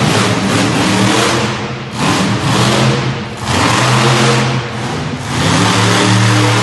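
Monster truck engine revving hard in repeated surges, its note rising and falling, loudest in the second half.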